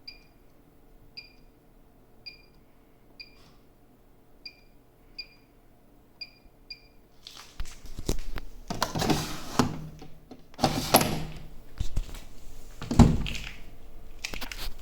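Bosch washing machine's control panel giving short high electronic beeps, about eight over six seconds, as its buttons are pressed. After that come several loud knocks and handling noises, thunks like a door or panel being worked.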